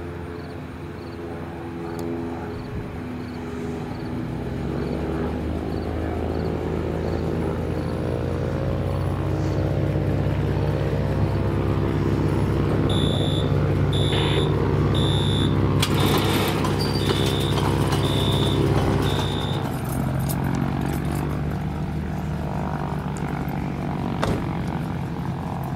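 Cessna 182's six-cylinder piston engine and propeller running as the plane rolls down the runway and taxis, growing louder as it passes close and easing off about twenty seconds in. A row of short high beeps sounds over it about halfway through.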